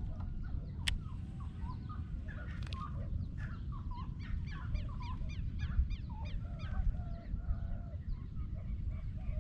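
Birds calling over a steady low rumble. Lower calls are scattered through, and there is a fast run of short rising chirps, about four or five a second, from about three to six seconds in. A single sharp click comes about a second in.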